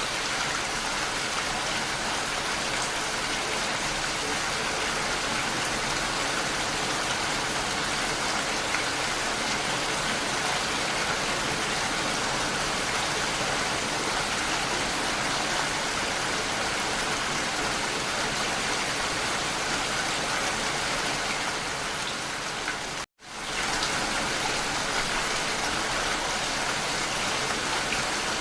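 Steady heavy rainfall, an even hiss of drops. The sound drops out for a split second about three-quarters of the way through, then returns at the same level.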